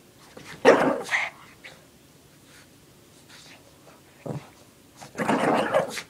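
Shih Tzu giving two short, rough play growls while tugging at a fleece blanket, about a second in and again near the end, with a brief grunt between.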